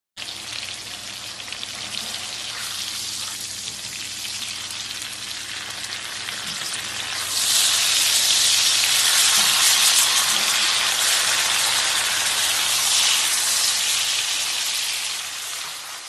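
Meat searing in a hot frying pan: a steady sizzle with fine crackling that grows louder about halfway through and fades out at the end.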